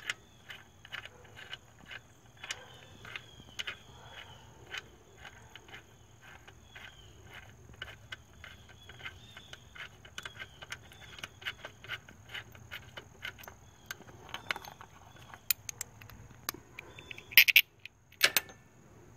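Light metal clicking and ticking from a wrench backing out a bolt, at an irregular two or three clicks a second, with two louder metallic clinks near the end as parts are handled.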